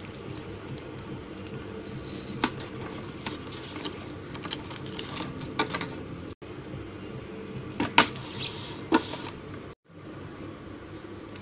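Scattered light clicks, taps and rustles of hands handling a thermocol foam fuselage and the small brushless motor and its wires, over a steady low background hum. The sound cuts out briefly twice.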